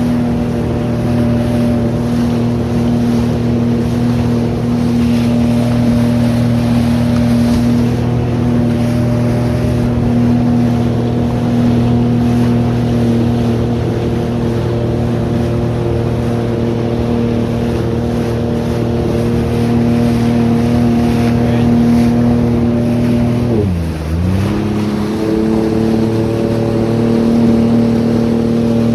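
2024 Sea-Doo Fish Pro Trophy personal watercraft engine roaring at a steady high speed, its note holding an even pitch over the rush of water and wind. Late on, the throttle is briefly let off: the engine note drops sharply, then climbs back up to speed.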